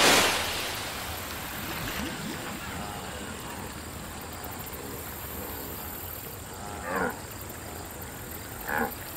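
Big water splash from an animal being dragged under by a crocodile, dying away over the first second, then steady background ambience. Two short, low animal grunts come near the end, about two seconds apart.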